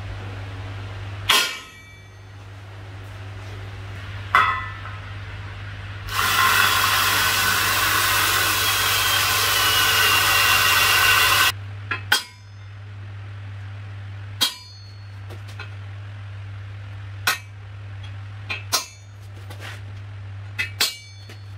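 Two hammer blows on a steel centre punch marking a steel foot plate, then a cordless drill boring into the plate for about five seconds with a steady grinding whine. After that come single sharp hammer strikes on steel, ending with taps on the face of the anvil; a low steady hum runs underneath.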